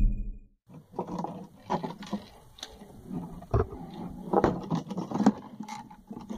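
Background music cuts off in the first half second, then irregular knocks, clicks and crinkles of a plastic water jug being handled and turned over.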